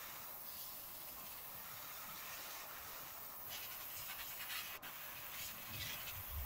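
Airbrush spraying paint: a faint, steady airy hiss.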